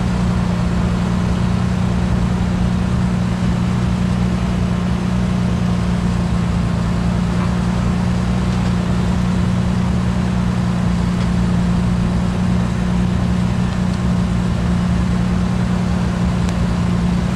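Jeep Cherokee XJ engine running steadily at low revs, with no revving, as the Jeep crawls slowly over boulders.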